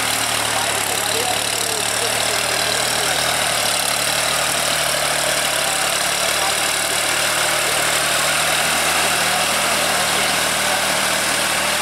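Case IH JX55T tractor's diesel engine running steadily under load while it pulls a rotary tiller through wet paddy mud, with a steady hiss over the engine note.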